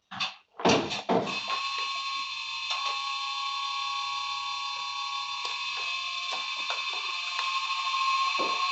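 Model-railway sound decoder playing the sound of an ALe 642 electric railcar through the model's small loudspeaker: a few short loud bursts in the first second, then a steady running sound with a chorus of high whining tones and scattered clicks.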